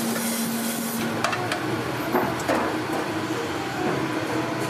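Water hissing from a pre-rinse spray hose over a steady machine hum. About a second in the hiss drops away and trays and steel pans clatter, with a few sharp knocks that ring briefly.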